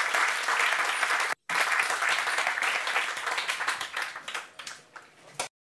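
Audience applauding, dense at first, then thinning to a few scattered claps before cutting off near the end, with a brief dropout about one and a half seconds in.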